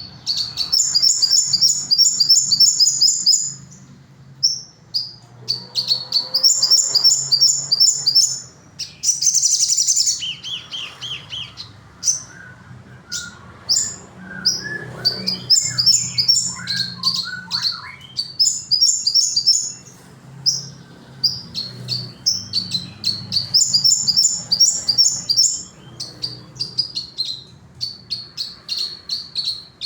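A sogon songbird singing loudly: fast, high trilled phrases about two to three seconds long, repeated several times, broken by short chirps and brief pauses.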